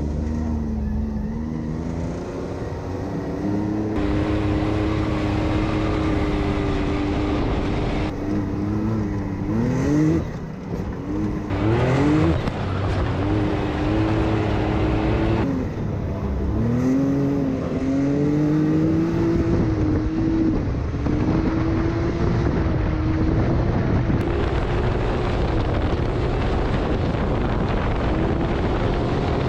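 Can-Am side-by-side's engine under way, holding a steady pitch for long stretches, with quick rises and drops in revs about a third of the way in and again a little past halfway.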